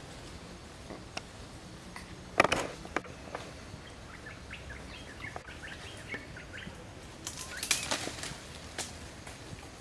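Outdoor ambience: two bursts of rustling, one about two and a half seconds in and one near eight seconds, with a string of short, high chirps between them.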